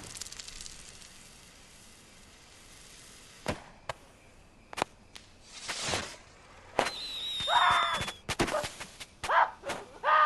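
The rumble of a firework rocket's blast dies away over about two seconds. Scattered sharp clicks and a short whoosh follow, then a few short high squeals near the end.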